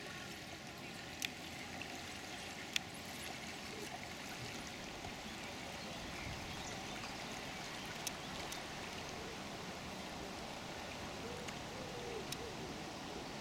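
Steady trickling and dripping of water from a kayak paddle's strokes as a plastic kayak glides along flat water. Two sharp clicks come in the first three seconds.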